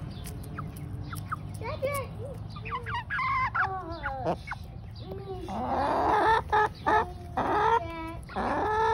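Several hens clucking and calling while being hand-fed mealworms: a run of short calls that rise and fall in pitch, a harsher squawk about six seconds in, and a quick trilling call near the end.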